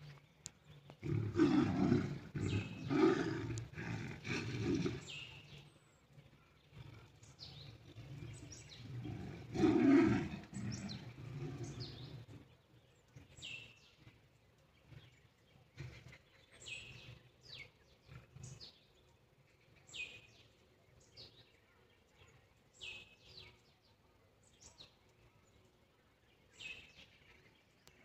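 Big cats growling and roaring in two loud bouts of repeated rough pulses, the first a second in and the loudest about ten seconds in. After that a bird chirps over and over with short, high, falling calls.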